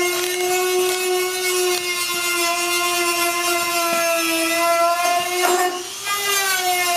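Handheld high-speed cutting tool whining steadily as it cuts into a BMW E46's steel rear quarter panel. Its pitch sags slightly under load, and about six seconds in it briefly lets off and spins back up.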